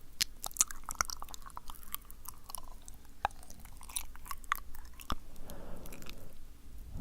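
Wet, sticky mouth sounds close to the microphone: irregular lip smacks and tongue clicks, several a second.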